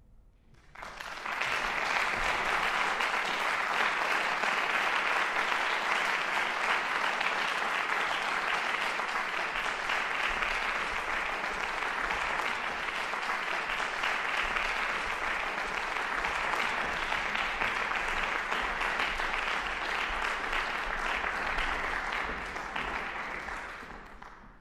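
Audience applauding. The applause breaks out about a second in, holds steady, and fades away near the end.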